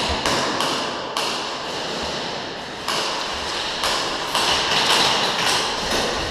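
Airsoft guns firing single shots at an irregular pace, about a dozen sharp cracks, each echoing in a large indoor hall.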